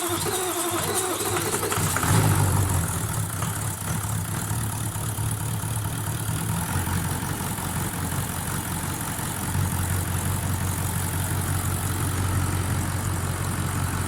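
Freshly rebuilt Toyota 1VD-FTV V8 turbodiesel starting on its first start: it catches about two seconds in with a brief rise in speed, then settles into a steady idle.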